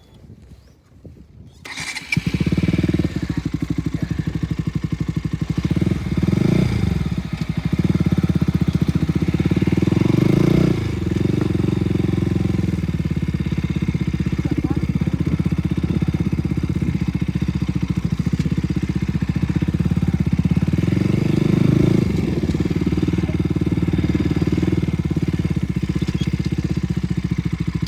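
KTM RC 200's single-cylinder motorcycle engine, loud and running steadily from about two seconds in, its pitch swelling up and down a couple of times.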